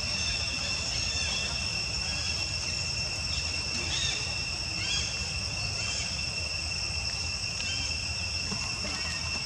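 Steady high-pitched insect drone holding two even tones throughout, with a low rumble underneath and a few faint short chirps around the middle.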